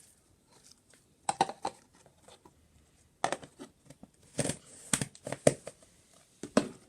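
Beaded slime being squeezed and stretched by hand, the beads giving several short bursts of crackling, crunchy clicks.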